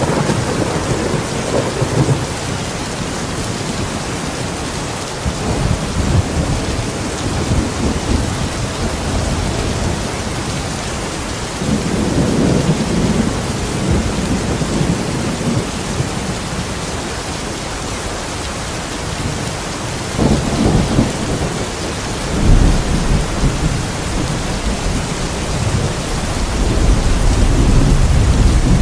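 Steady rain with rolls of thunder, low rumbles that swell and fade several times.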